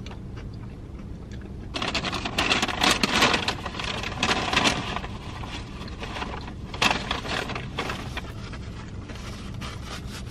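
Paper rustling close by, loud for about three seconds starting two seconds in and again briefly about seven seconds in, as a paper napkin is pulled from a fast-food bag. A steady low hum lies underneath.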